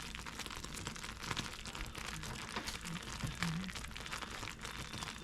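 Butter toffee mixture of butter, sugar and corn syrup boiling in a pot, a steady crackling sizzle of many small pops.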